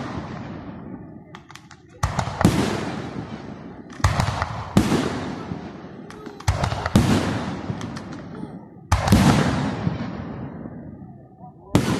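Aerial firework shells bursting: about eight sharp booms, mostly in close pairs every two to three seconds, each trailing off in a long rolling echo.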